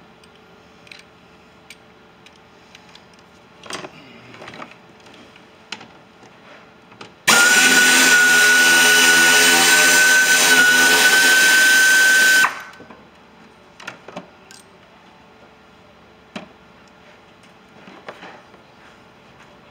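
A cordless power driver runs steadily for about five seconds, starting about seven seconds in, with a whine that rises slightly before it stops suddenly, spinning out one of the 10 mm bolts. Soft clicks and knocks of hand work come before and after it.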